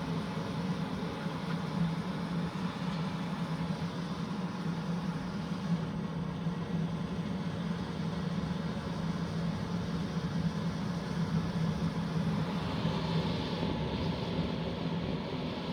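Electric pet hair dryer running steadily, a constant blowing hiss over a low motor hum.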